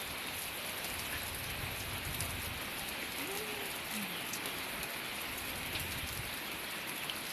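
Heavy rain falling steadily, a constant hiss with the patter of drops.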